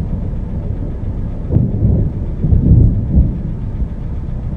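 Thunder rumbling, a deep steady roll that swells loudest from about a second and a half to three seconds in.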